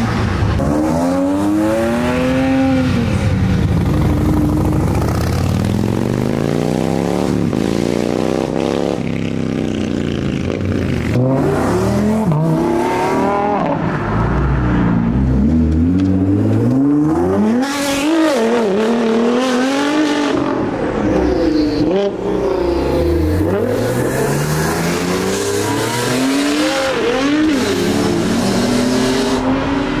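Several supercars accelerating hard along the road one after another. Their engines rev up and drop back again and again as they change gear, and the engine notes overlap as each car comes past.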